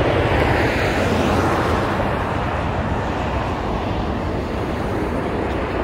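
Jet airliner's engines at takeoff power during the takeoff roll: an even rushing noise that slowly fades as the plane moves away.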